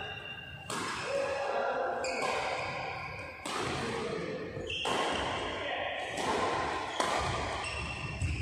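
Badminton rackets striking a shuttlecock: sharp hits every second or so, each ringing on in a large echoing hall.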